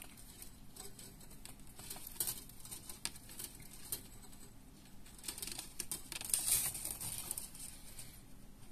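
Light, scattered clicks and scratchy rustling of thin wire being pulled from a bundle and handled between the fingers, with a brief denser scratchy patch about six seconds in.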